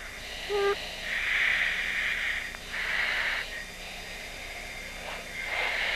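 Breathing into a fighter crew's oxygen-mask microphone, heard over the F-15 intercom as rushes of hiss about a second long with short gaps between them. A short pitched beep sounds just over half a second in.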